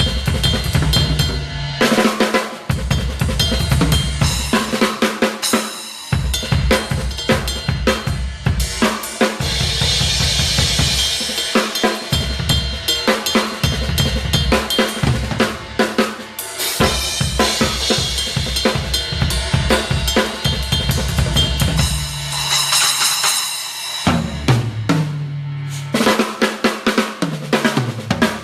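Crush acoustic drum kit played hard in a sound check: rapid kick-drum and snare patterns with cymbal crashes. Near the end, tom fills step down from higher to lower toms.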